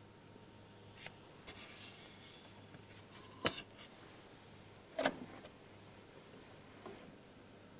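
A 78 rpm shellac record being handled onto a turntable platter: soft rubbing and sliding, then a few light clicks and knocks, the sharpest about five seconds in, over a faint steady hum.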